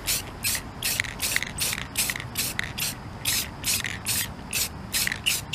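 Aerosol spray can of clear matte enamel hissing in short quick bursts, about three a second, as a light coat is sprayed on.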